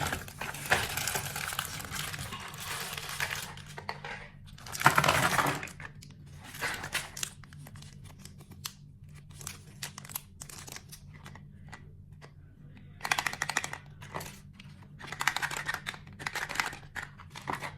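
Packaging being handled and opened: irregular bursts of crinkling and tearing with scattered short clicks, over a steady low hum.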